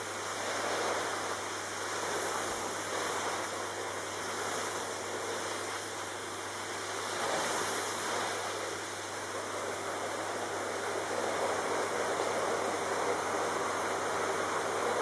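Vacuum cleaner running: a steady rushing of air sucked through the hose nozzle over a low hum, swelling and easing slightly as the nozzle is moved about.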